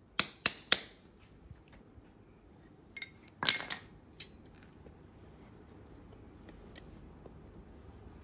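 Farrier's hammer tapping a steel horseshoe held to a horse's hoof, three quick ringing strikes, then a clatter of steel tools about three and a half seconds in.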